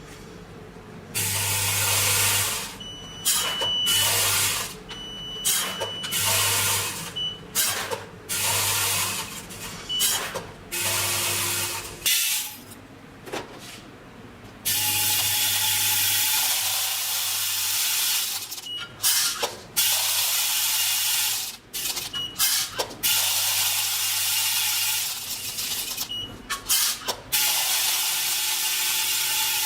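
Small powder and granule filling machine dispensing in repeated runs: a motor hum under a hiss of material pouring. The runs come in short bursts about every two seconds at first, then last longer.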